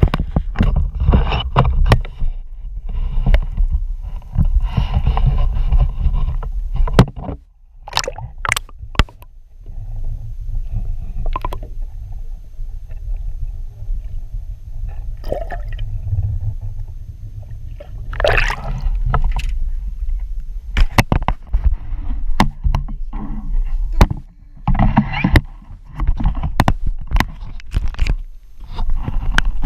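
Handling knocks and scrapes on a small fishing boat, with water gurgling and wind rumbling on the microphone.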